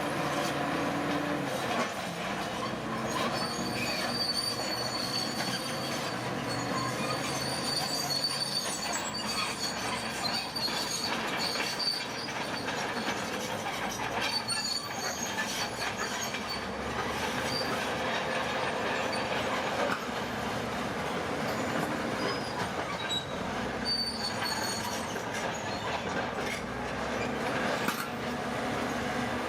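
Crawler bulldozer at work: its diesel engine runs steadily while the steel tracks clank and give a high metallic squeal that comes and goes.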